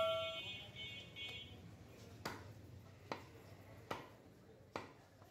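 A bell-like ding fades out over about the first second. Then a butcher's blade chops goat meat against a wooden log block four times, sharp single knocks about 0.8 s apart.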